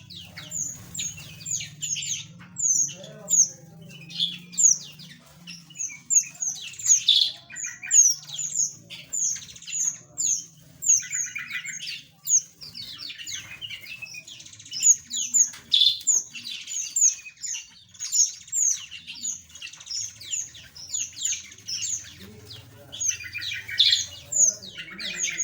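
A flock of small aviary birds chattering, with many short, sharp chirps and squawks overlapping the whole time, and a couple of buzzy, rattling calls among them.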